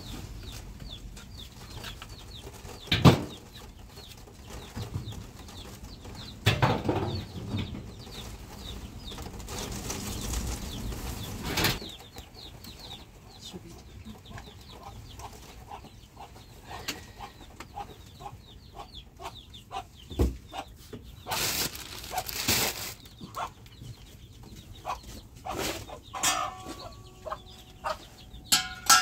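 Chickens clucking and peeping, with a few sharp knocks and short noisy bursts of rustling or wing-flapping.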